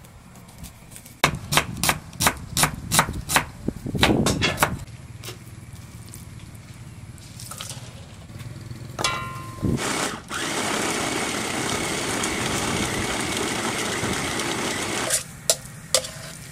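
Electric mini food chopper grinding raw squid and shallots into paste: after a short whine it runs loud and steady for about five seconds, then cuts off suddenly. Before it, a quick run of about ten sharp knocks.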